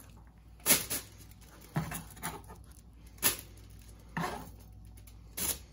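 A kitchen knife scooping chopped onion off a plastic chopping board to tip it into the slow cooker, with about six sharp knocks of the knife and board roughly a second apart.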